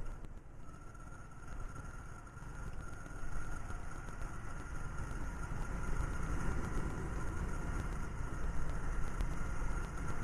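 TVS Sport motorcycle running under way, heard from a camera mounted on the bike, with a thin steady whine over a low rumble; it gets louder about three seconds in.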